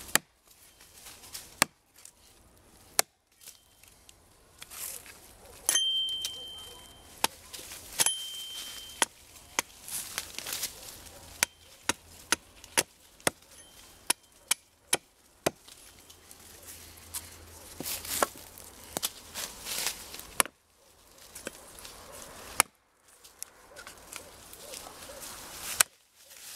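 Hatchet chopping a forked branch on a wooden stump: sharp, irregular chops, a few spaced strokes at first, then quick runs of several blows with short pauses between.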